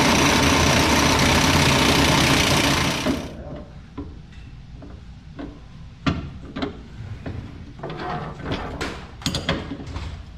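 Impact wrench hammering on a cab-mount bolt for about three seconds, then stopping abruptly. Scattered metal clanks and knocks of tools and sockets follow.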